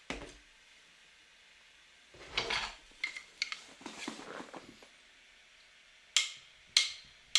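Light handling noises: a knock, a short clattery rustle, a run of small clicks, then two sharp clicks near the end.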